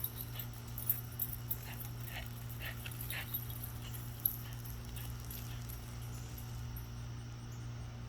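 Dog whimpering faintly a few times, around two to three seconds in, over a steady low hum.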